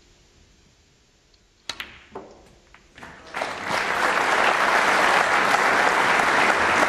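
Snooker balls clicking: the cue strikes the cue ball, a second click follows about half a second later and a softer knock after that. From about three seconds in, audience applause rises and holds steady, the loudest sound; the green has just been potted.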